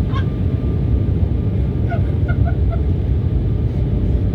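Embraer 195 jet airliner on approach: a steady, loud low rumble with no break. A few short, faint higher-pitched sounds come about two seconds in.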